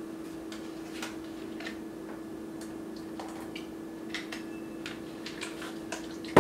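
Light clicks and taps scattered irregularly from a small bottle and its cap being handled and opened, over a steady hum.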